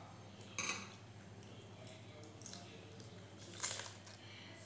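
Hands tearing pieces off a flaky Dhakai paratha: two brief rustling tears, about half a second in and again near the end, over a faint steady hum.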